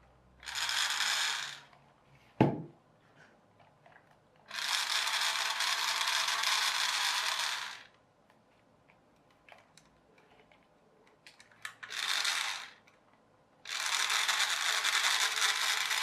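Small electric motor and plastic gearbox in a wired remote control toy car whirring in four bursts of one to three seconds as a controller button is pressed, with a sharp click between the first two. This is the motor that drives the door-opening arm.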